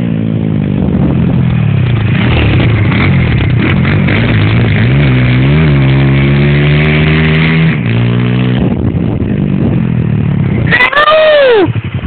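Thumpstar 125 cc four-stroke single-cylinder pit bike engine being ridden, its revs rising and falling with the throttle. Near the end, close by, a sharp throttle blip rises and falls quickly in pitch.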